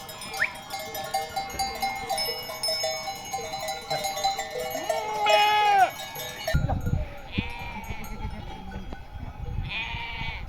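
A flock of sheep bleating over the ringing of several sheep bells, with one loud drawn-out bleat about five seconds in and more bleats later. Low rumbling noise takes over in the second half.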